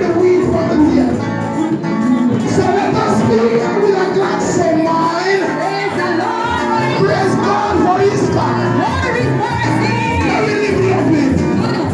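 Live gospel music with several voices singing over the band.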